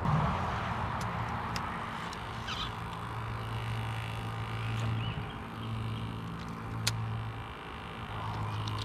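Outdoor ambience with a steady low hum, a few faint higher chirps and scattered clicks, the sharpest click about seven seconds in.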